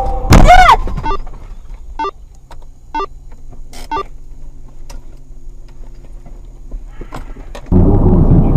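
A vehicle horn blaring loudly and dropping in pitch as the vehicle sweeps past, heard from inside a car. Then a low engine hum with faint ticks about once a second, and near the end a louder rumble of engine and road noise cuts in.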